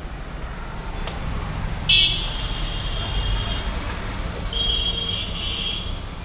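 Street traffic: a steady low rumble of passing motor vehicles with two long vehicle horn blasts, the first about two seconds in and the second around five seconds.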